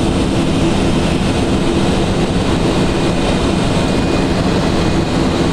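Steady in-flight cockpit noise of an Il-86 airliner: rushing airflow and engine noise with a low hum underneath.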